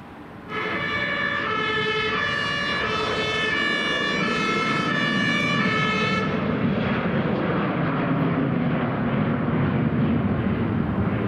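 German two-tone emergency-vehicle siren (Martinshorn), switching back and forth between two pitches about every 0.6 s. It starts suddenly and cuts off after about six seconds, leaving a steady rushing noise of traffic or engine.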